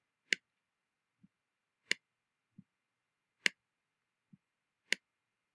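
Computer mouse clicking four times, about a second and a half apart, with fainter soft knocks in between, over a faint steady high whine.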